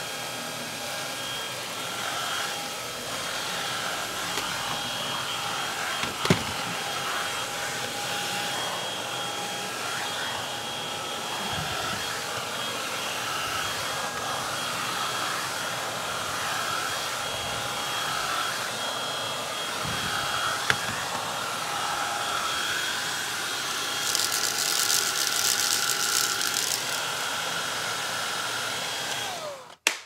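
Greenote GSC50 cordless stick vacuum in handheld mode with a crevice nozzle, its motor running steadily with a whine while it is worked over carpet. Two sharp knocks come about a quarter and two-thirds of the way through, and a few seconds of crackling come near the end; the sound cuts off just before the end.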